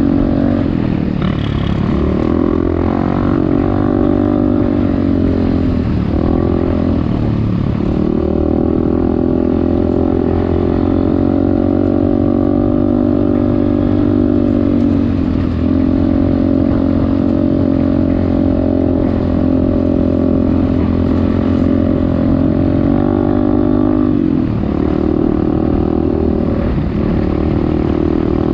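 Dirt bike engine running hard off-road. Its pitch drops and climbs back a handful of times as the rider shifts gears or rolls off and back on the throttle.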